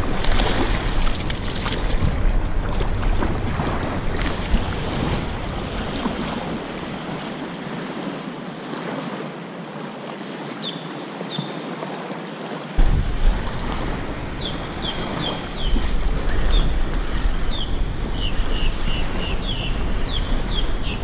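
Wind buffeting the microphone over small waves lapping on a sandy shoreline, a steady rushing noise. In the second half, a run of short, high, downward chirps sounds over it.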